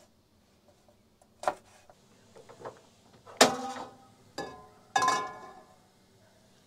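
A frying pan knocking and clanking on a gas stove's burner grate: a few knocks, the two loudest ringing on briefly, about halfway through and again a second and a half later.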